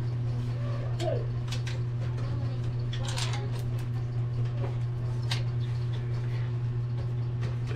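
Scattered light metallic clicks and scrapes of hands working the metal rear expansion-slot bracket and screws of a desktop computer case, over a steady low hum.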